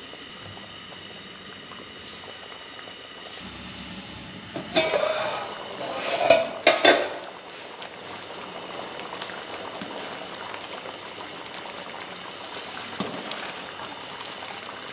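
Pot of rice in stock boiling with a steady bubbling hiss as the water cooks down into the rice. About five seconds in, a metal slotted spoon clatters against the aluminium pot several times over a couple of seconds.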